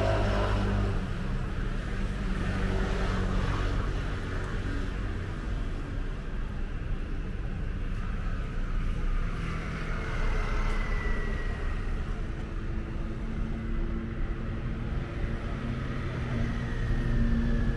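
City street traffic: vehicle engines running steadily, with a high whine that slides slowly down in pitch about ten seconds in.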